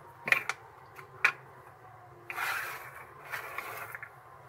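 Two sharp clicks of small plastic bottle caps being handled, then two spells of rubbing and scraping noise as the hands move over the table.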